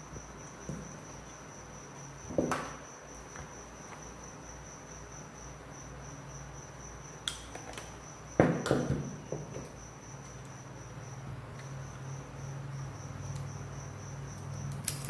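Knocks and rustles of wires and a plastic switch-and-outlet plate being handled, loudest about two and a half and eight and a half seconds in, and a sharp snap of wire strippers on the red wire near the end. Under it a cricket trills steadily on one high note, pausing briefly about eleven seconds in, over a low hum.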